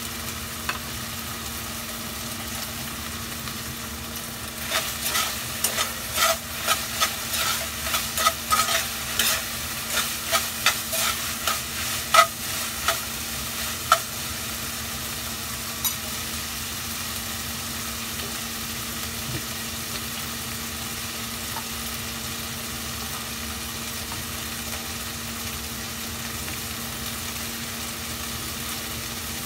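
Metal spoon stirring and scraping in a stainless saucepan, a quick run of clinks lasting about ten seconds, starting about four seconds in. Under it, a steady sizzling hiss from the pan on the gas flame and a steady low hum.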